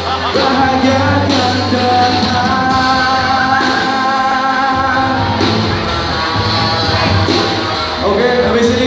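Live rock band playing: guitars and a lead singer over a steady beat of evenly spaced drum-like hits.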